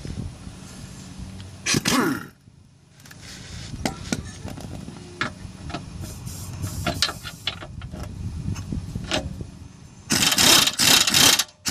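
A socket wrench running a lower control arm mounting bolt into a car's subframe: irregular metallic clicks and scrapes over a steady low hum, with a louder clattering stretch near the end.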